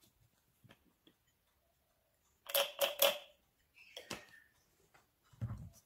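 A plastic sunflower-oil bottle clicking and crackling as it is handled and tipped to pour oil onto a plate. There is a cluster of sharp clicks about two and a half seconds in and a dull knock near the end.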